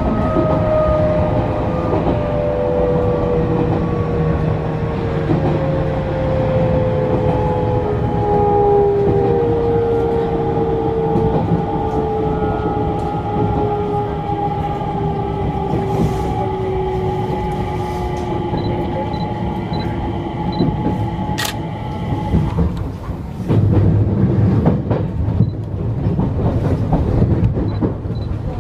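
Enshu Railway 2000 series electric train running, heard from the cab: a motor whine falls slowly in pitch as the train slows, over steady wheel-on-rail rumble. The whine stops about 22 seconds in, and a heavier rumble over the track follows.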